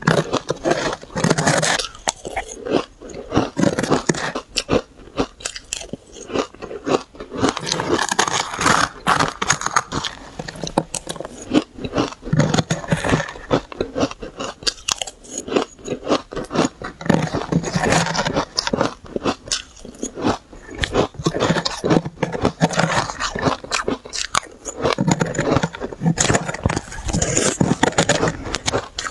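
Powdery shaved ice being bitten and chewed: a dense, unbroken run of crunches and crackles, with louder bites every few seconds.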